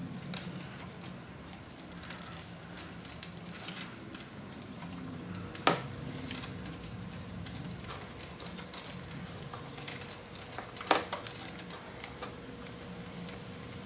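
Scattered light clicks and taps of parts and tools being handled during hand assembly work on a scooter, with two sharper knocks, one about halfway through and one a few seconds later, over a faint steady hum.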